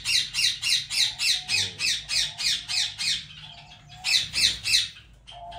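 Aviary bird giving a fast run of high, downward-sliding calls, about four a second. The calls stop about three seconds in and resume with three more about a second later.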